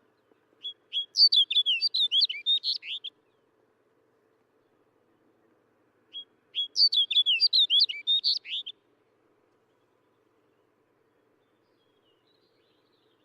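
Snow bunting singing: two short phrases of quick, warbling notes, the second starting about six seconds in.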